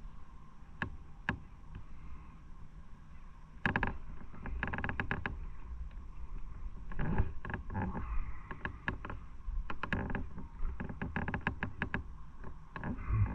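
Motorcycle on the move: a steady low engine and wind rumble, with clusters of sharp knocks and rattles from about four seconds in.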